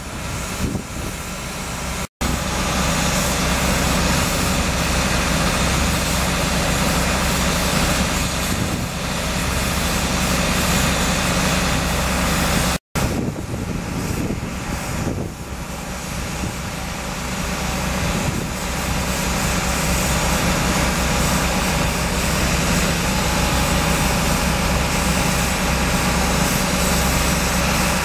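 Rail-mounted foundation-setting drilling train's engine and drilling machinery running steadily and loudly as it sets a mast foundation into the ground. The sound drops out for an instant twice.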